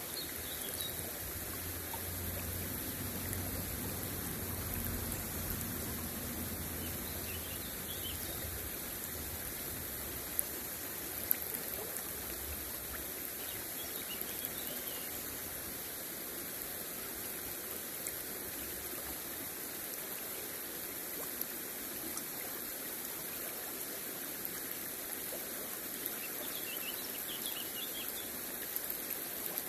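Shallow river water flowing and rippling over stones close by: a steady rush of moving water.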